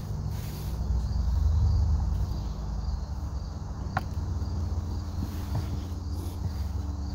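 Faint insect chirps repeating at an even pace over a steady low rumble, with a single sharp click about four seconds in.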